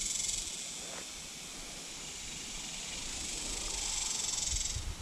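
Cicadas droning in a high-pitched buzz that fades within the first second, then swells again and cuts off abruptly near the end.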